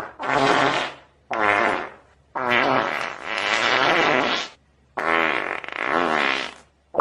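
Four long, wavering, buzzy straining sounds in a row, each lasting about one to two seconds with short pauses between: the noises of someone pushing hard on the toilet while constipated.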